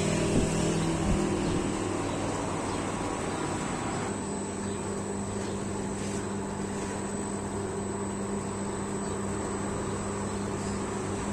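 A motor running steadily with a constant low hum and an even high whine, settling to a lower, even level about four seconds in.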